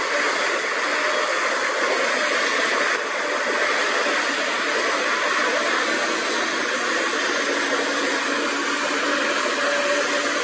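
Cat 320CL excavator's diesel engine and hydraulics running steadily under load while digging, an even, unbroken noise with a faint hum in it.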